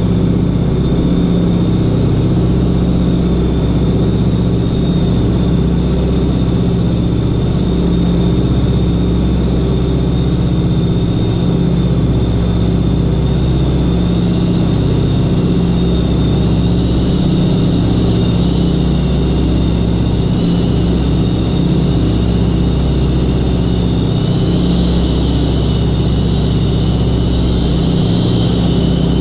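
Beech 18's twin radial engines and propellers droning steadily in flight, heard from inside the cabin. A thin high whine rides over the drone, joined by a second, slightly lower whine about halfway through.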